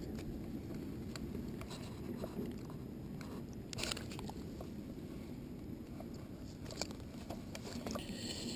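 Wind rumbling on the microphone, with scattered light clicks and rustles from handling a fish, rod and line and moving on the grass; a brighter rustle near the end.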